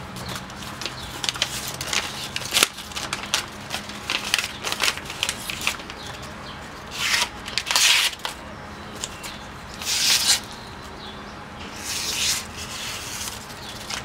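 Newspaper rustling and crackling as a freshly sharpened single-bevel knife slices through it in several strokes, cutting off thin strips to test the edge. The longest, loudest cuts come about halfway through and near the end.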